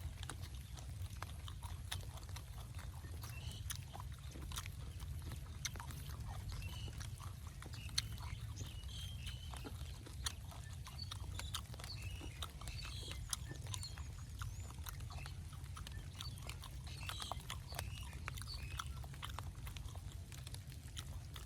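Close-up eating sounds: irregular wet clicks and smacks of chewing and mouth noises, over a steady low rumble.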